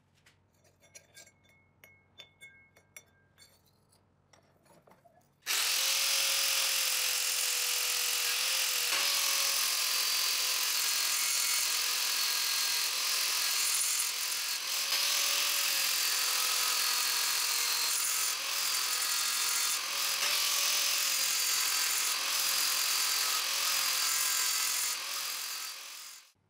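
Angle grinder with a thin disc grinding steel, its motor tone dipping and recovering as the disc bites. It starts about five seconds in, after a few faint clicks, and stops just before the end.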